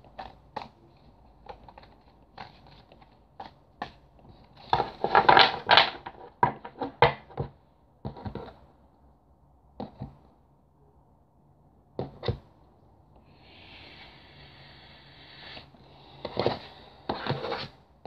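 A Rider-Waite tarot deck being shuffled by hand: a run of light card clicks, with a denser clatter about five seconds in. Then cards are set down and slid on a tabletop: single taps, a soft rustling hiss for a couple of seconds, and more clatter near the end.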